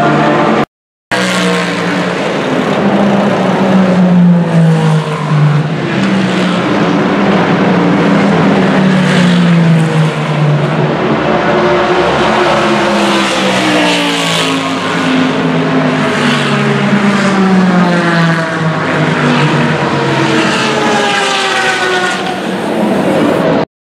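Sports-prototype and GT race cars passing at speed one after another, engines at high revs, each note dropping in pitch as the car goes by and others climbing through upshifts. The sound cuts out briefly about a second in.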